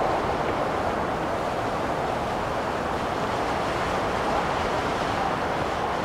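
Blizzard wind: a steady, even rushing noise that holds the same level throughout, without distinct gusts.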